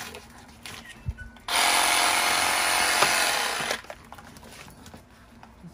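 Cordless reciprocating saw running for about two seconds, its blade cutting into a bluefin tuna carcass. It starts about a second and a half in and stops abruptly.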